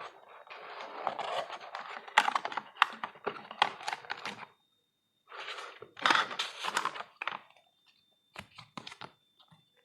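Packaging being handled by hand during an unboxing: rustling with many sharp clicks and taps. It comes in two spells with a pause of about a second between them, then a few scattered taps near the end.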